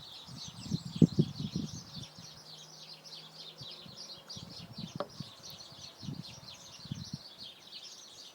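Many small birds chirping steadily in the background, with a few short low thuds about a second in and again around five seconds.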